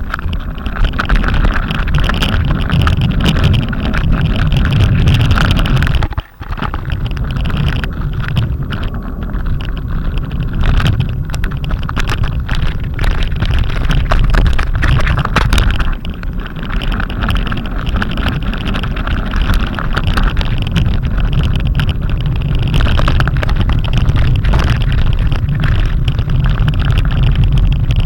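Windstorm gusts buffeting the microphone: loud, continuous rumbling wind noise, dropping out for a moment about six seconds in.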